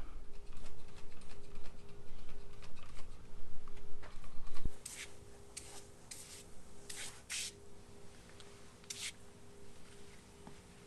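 Six short hisses of degreaser being sprayed in quick succession, after a few seconds of rubbing and handling noise.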